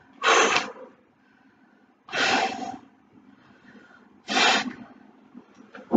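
A woman breathing out hard three times, about two seconds apart, with each rep of a resistance-band pull-apart.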